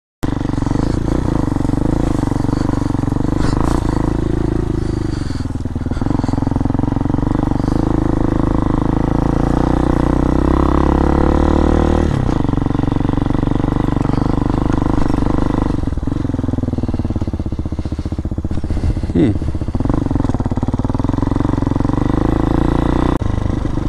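Hawk DLX dual-sport motorcycle engine running under way on a sandy dirt trail, its pitch rising and falling with the throttle. It starts abruptly just after the beginning, when the sound cuts back in.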